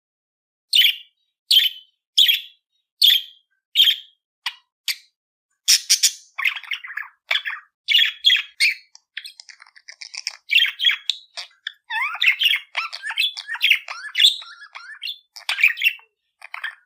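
Small pet parrots calling: a run of sharp single chirps a little under a second apart, then from about six seconds in a busy stream of chattering and warbling.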